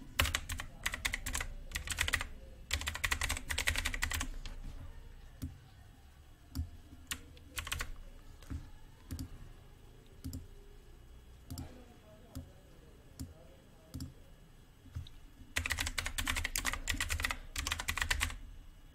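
Typing on a computer keyboard: quick runs of key clicks at the start and again near the end, with separate single clicks scattered through the quieter middle stretch.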